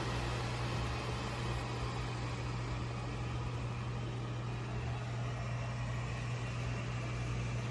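Airzeen R7 robot vacuum cleaner running: a steady low motor hum over an even fan hiss.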